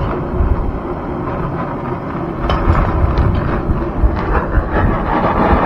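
Handheld gas torch on a fuel canister burning with a steady rushing flame noise, with a few light clicks over it.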